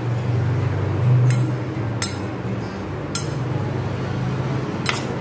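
Steel spoon stirring dried anchovies and spice powder in a stainless steel bowl, clinking sharply against the bowl four times. A low steady hum runs underneath.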